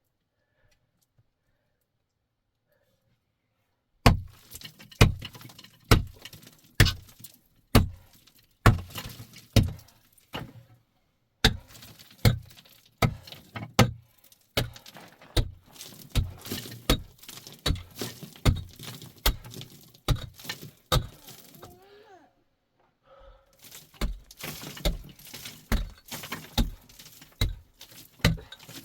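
A series of sharp impacts, roughly one or two a second, starting after about four seconds of silence and pausing briefly about three-quarters of the way through.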